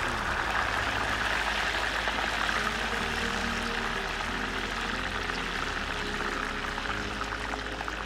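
Whole parrotfish deep-frying in a pot of hot oil: a steady sizzle with fine crackling throughout. Low held notes of background music sit underneath.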